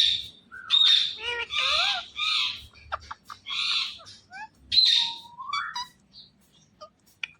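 Indian ringneck parakeet calling: a series of harsh screeches mixed with short warbling chirps over the first five seconds, ending in a rising whistle, then it falls mostly quiet.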